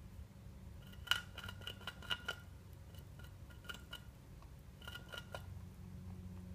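Light, sharp clicks in three quick bursts, each with a faint ringing tone.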